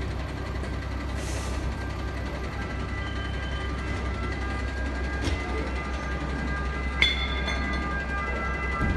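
Fire engine's diesel engine idling with a steady low rumble, amid street crowd noise. A sharp knock sounds about seven seconds in, and faint steady high tones come in over the second half.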